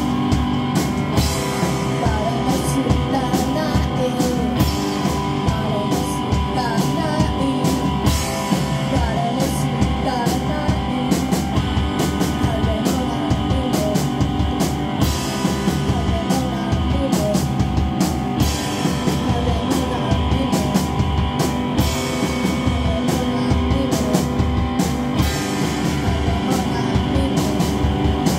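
A rock band playing live: electric guitar and drum kit keeping a steady, dense beat, with a woman singing over them.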